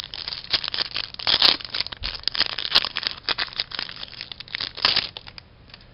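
Foil wrapper of a 2007-08 Upper Deck MVP hockey card pack being torn open and crinkled by hand: a rapid run of crackles that stops near the end.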